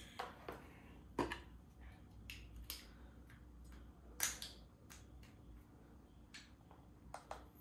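Scattered light clicks and taps from handling, irregularly spaced, the two strongest about a second and about four seconds in, over a faint low hum. The tattoo pen's motor is not running.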